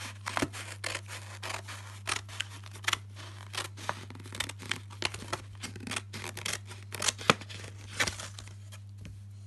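Scissors cutting through a paper plate: an irregular run of sharp snips and crunches as the blades close through the card, stopping near the end.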